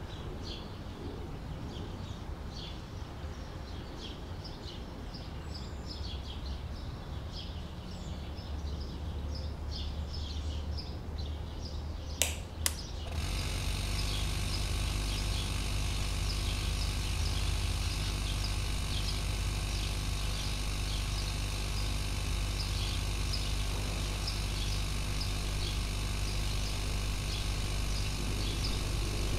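Birds chirping, then two sharp clicks about twelve seconds in, after which a hermetic refrigerator compressor starts and runs with a steady hum, pumping air into a plastic soda bottle under pressure.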